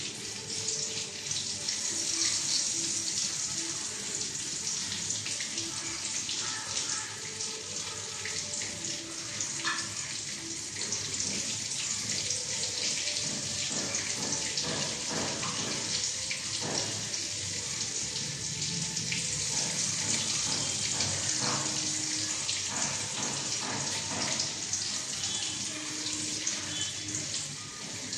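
Eggs frying in hot oil in a wok: a steady sizzle with scattered crackles and pops.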